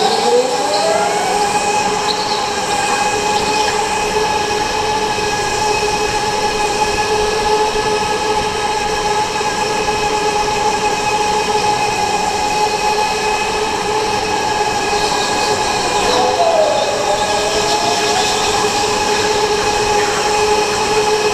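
Electric go-kart motor whining steadily at racing speed. Its pitch climbs at the start as the kart accelerates, dips briefly about three quarters of the way through as it slows for a corner, then rises again.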